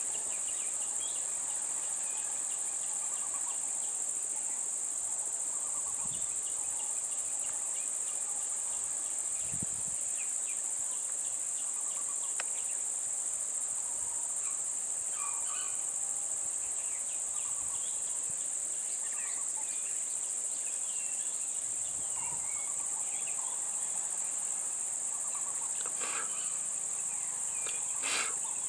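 Steady, high-pitched insect chorus with scattered faint chirps.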